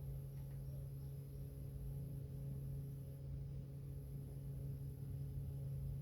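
A steady low hum, unchanging, with a faint high hiss above it.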